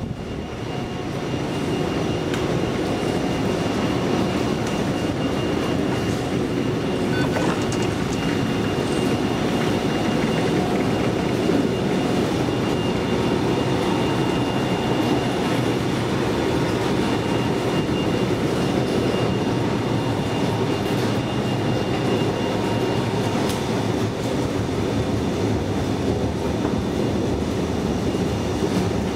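Steady, unchanging mechanical rumble and hiss with a faint high whine running through it.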